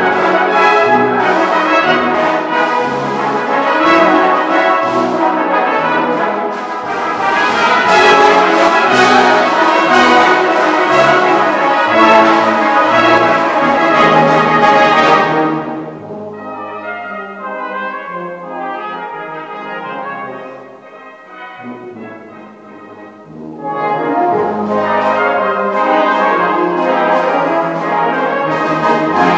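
A brass band with percussion playing: a loud full-band passage for about fifteen seconds, then a sudden drop to a quiet, thinner passage, building back to full band loudness about eight seconds later.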